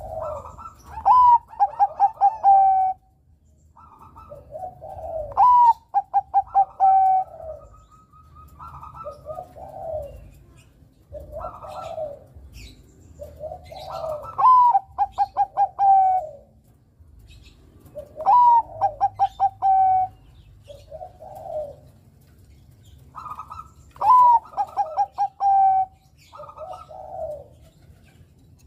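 Bangkok-type zebra dove (perkutut) singing. It gives five loud song phrases, each a high opening note followed by a fast run of short clipped coos, with softer, lower coos between the phrases.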